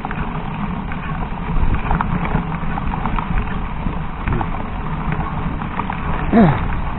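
Mountain bike riding over a rough dirt trail: a steady low rumble with a constant patter of small rattles and knocks from the bike and the ground. Near the end comes a short squeal that falls steeply in pitch, the loudest sound.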